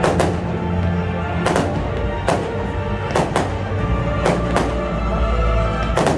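Fireworks shells bursting, about nine sharp bangs roughly a second apart, some in quick pairs, over loud music with a strong low bass.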